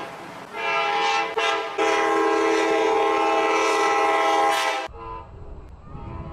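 Tri-Rail commuter train cab car horn sounding a chord of several notes at once: a short blast, then a long blast of about three seconds that cuts off abruptly. About a second later a fainter cab car horn starts.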